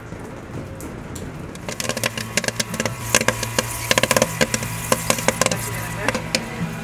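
Popcorn popping in a commercial kettle popcorn machine: a dense, irregular crackle of sharp pops that starts about two seconds in, over the steady hum of the machine's kettle stirring motor.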